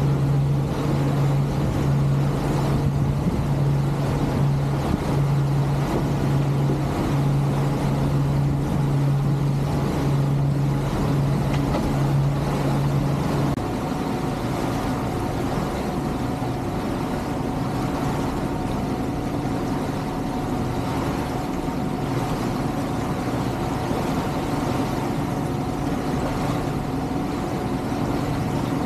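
Passenger ship's engine droning steadily under the wash of water along the hull. About halfway through, the sound changes abruptly to a slightly quieter drone with a higher steady hum.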